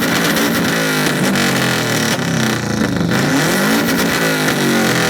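Subaru Impreza WRX STI's turbocharged flat-four engine revving hard through its exhaust, the pitch rising and falling several times.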